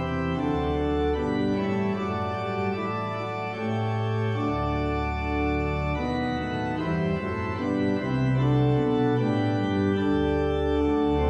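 Organ music: slow, sustained chords that change every second or so.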